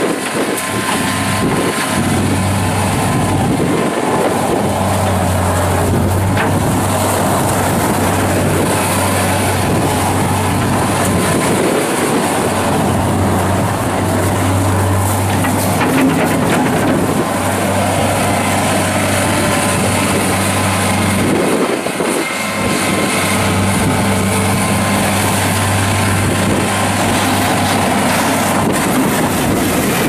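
The four-cylinder turbo diesel of a 2008 John Deere 317 skid steer loader running at a steady pitch as the machine drives and turns on gravel.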